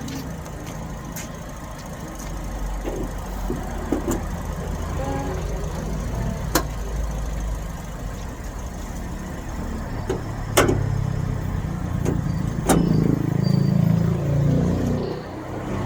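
Car engine idling steadily after a spare battery got it started: the no-start fault was the battery. A few sharp clicks come over it, about six and a half seconds in and twice more near ten and twelve seconds.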